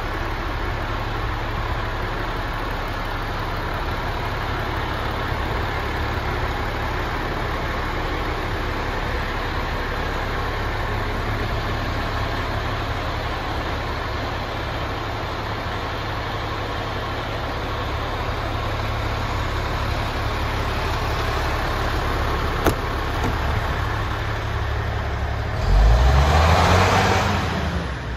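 MAN TGX 26.480 tractor unit's Euro 6 common-rail diesel idling steadily, then revved once near the end, its pitch rising and falling back over about two seconds.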